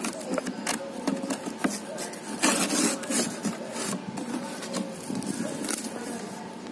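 Corrugated cardboard shipping box being handled and its flaps pulled open: irregular rubbing and scraping of cardboard with small clicks, and a louder scrape about two and a half seconds in.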